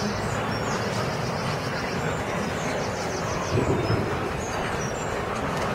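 A moving road vehicle running with a steady rumble and road noise, with a light rattling over it.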